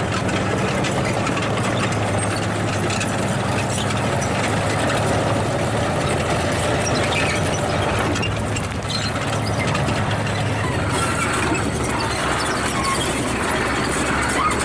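Tracked armoured vehicles driving over rocky ground, with a steady engine hum under the rumble and clatter of their tracks. A higher squeal joins about eleven seconds in.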